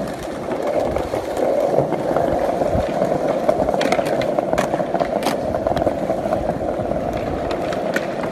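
Skateboard wheels rolling over stone paving tiles, a steady rough rumble, with several sharp clacks of the board from about four seconds in.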